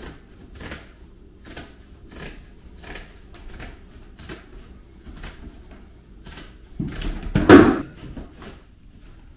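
Shears cutting through a sheet of Blanke Permat plastic uncoupling mat and its mesh, with a crisp snip about every three-quarters of a second. About seven seconds in there is a louder, longer rustling scrape as the mat is handled against the floor.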